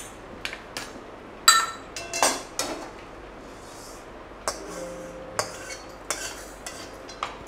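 Metal wok and steel utensils clinking and knocking as a pan gripper lifts the wok and the dry-roasted fenugreek seeds are tipped and tapped out into a small steel plate. A series of irregular clinks, one about halfway through leaving a short ringing tone.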